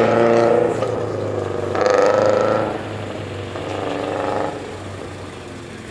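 Subaru Impreza's flat-four engine revs hard in three bursts as the car works through the cones, growing fainter as it pulls away.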